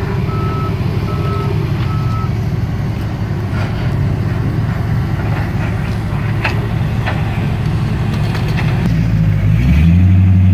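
Heavy equipment's reversing alarm beeping about every half second over a low engine rumble, stopping a couple of seconds in. Near the end an engine revs up and holds a steady, louder note.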